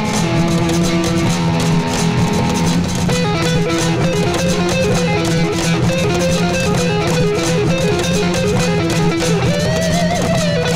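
Layered loop-station music built mainly on guitar: a repeating plucked guitar figure over a looped low bass line and steady percussive taps. A new melodic pattern comes in about three seconds in, and a sliding, bending note sounds near the end.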